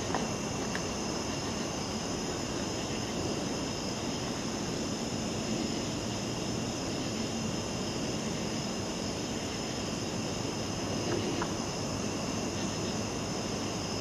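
Chorus of night insects such as crickets, several steady high-pitched trills sounding at once without a break, over the low rustle of someone walking on a forest path.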